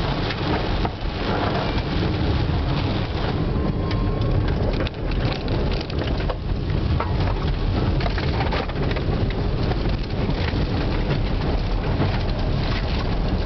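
1996 Toyota Tercel with a 1.5-litre DOHC four-cylinder, driving in heavy rain: a steady rumble of engine and tyre noise, with many small sharp ticks over it.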